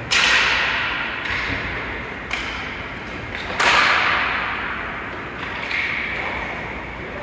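Ice hockey play in a rink: a string of sharp stick-and-puck impacts, about six of them, each echoing and dying away, the loudest about three and a half seconds in.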